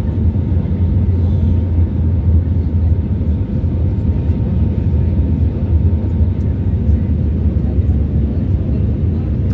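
Airbus A320neo engine and airflow noise heard inside the cabin while descending on approach: a steady low rumble with faint, even tones above it.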